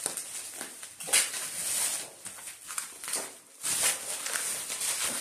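Plastic bubble wrap rustling and crinkling as a parcel is handled and unwrapped, with a few sharper crackles among the irregular rustle.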